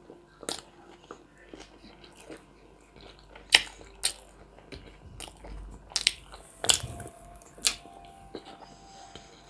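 A person chewing a mouthful of food close to the microphone, with soft wet mouth sounds and sharp smacking clicks at irregular intervals, about six in all.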